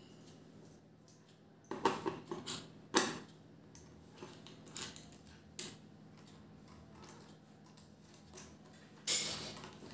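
A few sharp clicks and knocks of a small metal nut and bolt and fingers against a plastic filter dish as the nut is turned onto the bolt by hand, with a louder half-second handling noise near the end.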